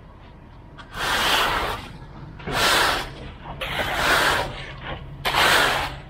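Aluminium straightedge screed scraping back and forth across stiff, freshly poured concrete: four scraping strokes, each under a second, about one every second and a half.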